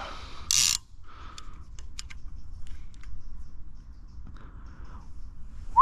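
Small clicks and rattles of fishing tackle being handled on the float rod, with a brief loud whoosh about half a second in. A short, sharp rising squeak comes right at the end.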